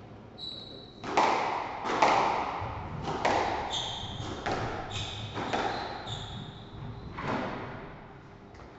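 Squash rally: hard ball strikes off racket and walls, roughly one a second from about a second in until about 7 seconds in, each ringing in the enclosed court, with short high shoe squeaks on the wooden floor between shots.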